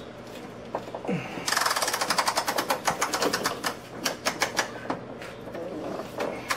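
Socket wrench ratcheting as subframe bolts are tightened: a fast run of sharp clicks starting a little over a second in, thinning to a few slower clicks.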